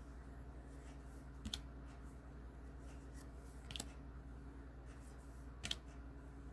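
Baseball trading cards being flipped through one at a time: three short, sharp card snaps about two seconds apart, over a faint low steady hum.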